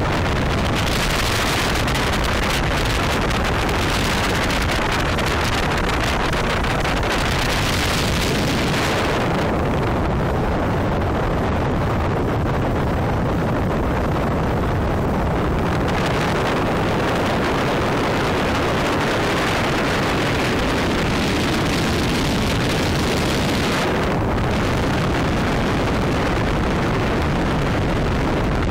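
Hydrofoil boat running at speed: a steady rush of wind on the microphone, spray and engine noise blended into one loud noise. The higher hiss fades for several seconds about a third of the way in, comes back, and dips again briefly near the end.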